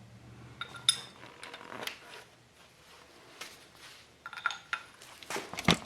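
Metal hand tool clinking and clicking against the nuts on a Morris Minor 948 engine as a nut is worked loose: a few scattered clinks, the sharpest near the end.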